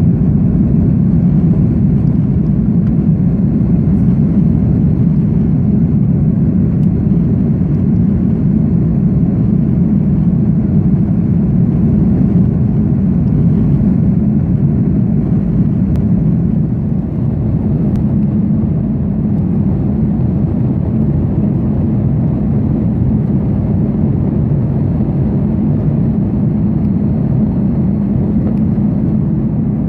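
Steady low drone of an Airbus A310 jet airliner's engines and airflow, heard inside the passenger cabin in flight, dipping slightly about 17 seconds in.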